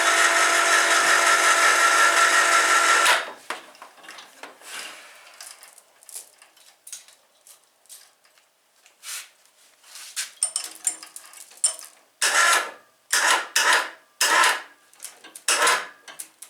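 A power tool runs steadily with an even whine and stops about three seconds in. Light clicks and handling knocks follow, then a string of five or six short, loud bursts near the end.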